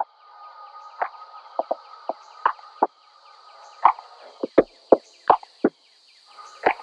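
Background music in a sparse stretch of short, knocking, plucked notes at an uneven rhythm.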